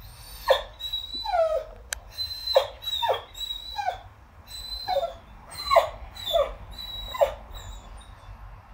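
Whippet whining: a string of about ten short, high cries, each falling in pitch. He is crying because a chew bone is stuck inside his rubber ball and he can't get it out.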